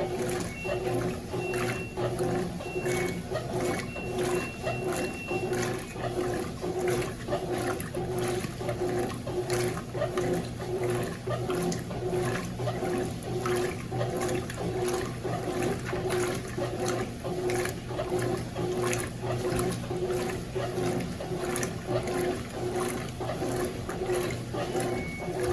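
Consul CWS12 top-loading washing machine agitating a load of jeans: the motor hums in short, even pulses as the agitator swings back and forth, with water sloshing.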